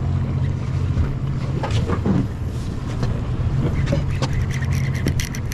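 Fishing boat's engine running with a steady low drone, with a run of sharp clicks near the end.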